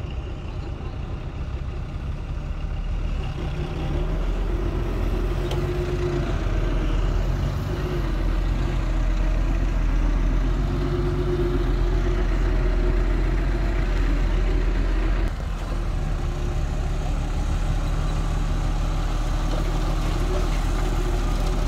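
Diesel engine of a dump truck loaded with soil, running steadily and growing louder about four seconds in. Near the end it drives the hoist that tips the bed and dumps the load.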